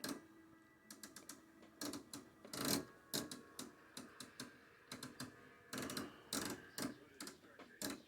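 Irregular light clicks and taps, with a few heavier knocks, from hands handling gear at an electronics workbench.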